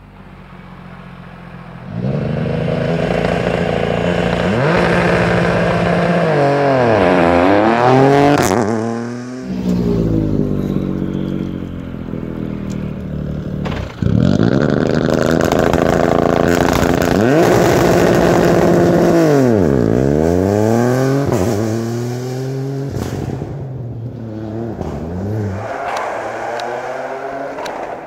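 Ford Fiesta Rally3's turbocharged 1.5-litre three-cylinder engine driven hard as the car passes twice, each time held at high steady revs, then falling and climbing again as the driver lifts for a corner and accelerates out.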